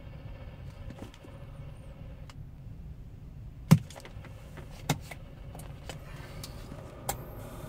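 CB radio channel lull between transmissions: low, steady background noise with three sharp clicks or pops spread over the last few seconds.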